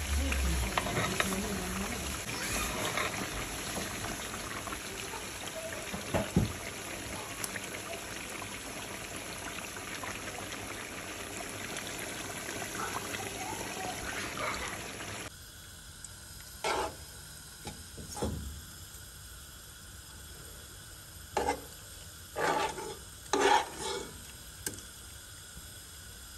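Chunks of sheep meat cooking in their own fat in a pot, a steady sizzle and bubbling. About fifteen seconds in it cuts to quieter, and a spoon scrapes and knocks against the pot several times as the meat is served out.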